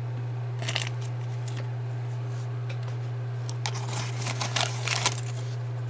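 Crinkling and rustling of booster-pack packaging being handled and opened: a short burst about a second in and a longer stretch of crackly rustles near the end, over a steady low electrical hum.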